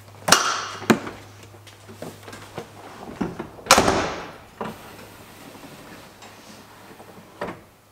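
Driver's door of a 1979 Ford Bronco being opened with a clunk and a sharp knock, then slammed shut nearly four seconds in, the loudest sound, as someone gets into the cab; a small click follows near the end.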